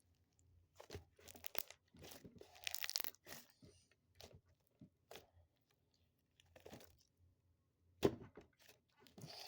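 Slime being kneaded with foam packing peanuts worked into it, making irregular crunching and crackling pops, thickest over the first few seconds, with one loud snap about eight seconds in.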